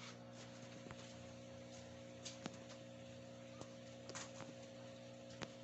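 Faint steady hum of several fixed tones with a few scattered light clicks.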